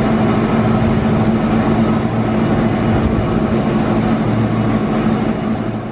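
A BB306 diesel-hydraulic locomotive's engine running with a steady low hum.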